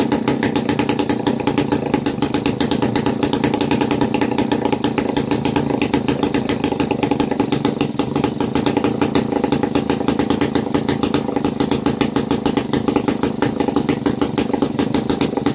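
A Sachs Stamo single-cylinder two-stroke stationary engine running steadily, with a fast, even popping beat.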